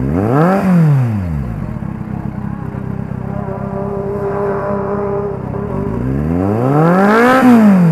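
Kawasaki Z800 inline-four engine revved through an SC-Project GP-M2 aftermarket exhaust: a sharp blip about half a second in that falls straight back, the revs held up for a few seconds in the middle, then a second sharp blip near the end.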